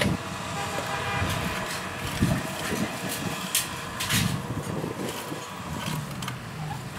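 A diesel engine running steadily, with a few sharp clanks about two, three and a half, and four seconds in.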